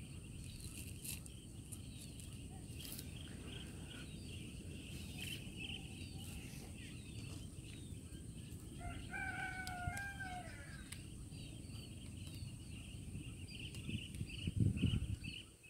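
A rooster crows once in the middle, one call of about two seconds, over steady chirping of small birds and a low rumble. There is a louder low thump near the end.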